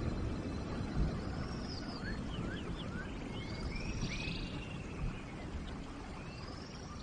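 Steady rain with a low rumble underneath, and birds calling over it: a run of short rising chirps and several arched whistled calls.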